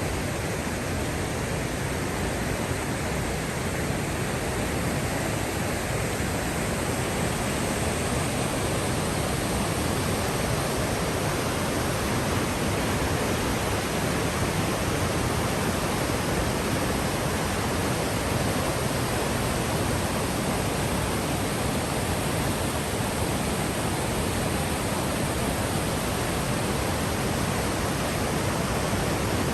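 Waterfall swollen by heavy rain, a loud, steady rush of falling water that does not let up.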